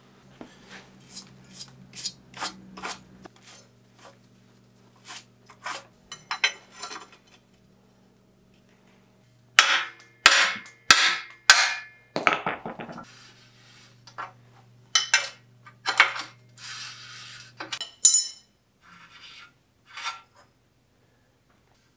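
Steel hand tools on a bicycle's bottom bracket as it is taken apart: a string of separate sharp metal clicks, then louder clanks and scrapes about halfway through as the lockring and cup are worked loose, then lighter clicks of the parts being handled.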